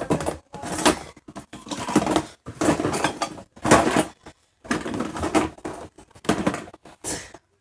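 Dishes and utensils being handled: a series of clattering, scraping bursts, about one a second.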